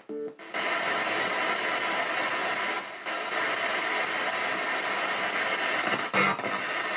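Spirit box radio scanner sweeping through stations in reverse sweep: a steady hiss of static, broken by a brief snatch of radio sound just after the start and a short crackle about six seconds in.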